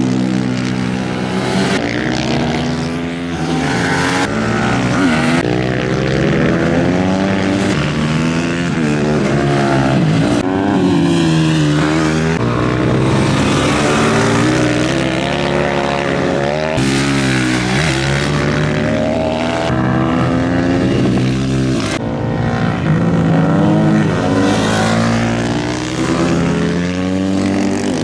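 Supermoto motorcycles racing, their engines revving up and dropping back again and again through gear changes as several bikes pass.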